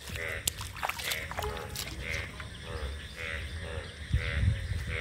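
Frogs calling in a repeating chorus, one call about once a second and shorter, lower calls about twice a second. A few sharp clicks in the first two seconds come from a hand working in the shallow water.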